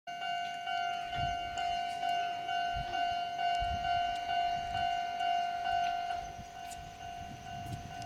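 Railway level-crossing warning bell ringing in an even repeating beat of about two rings a second as the crossing closes. It drops in loudness about six seconds in.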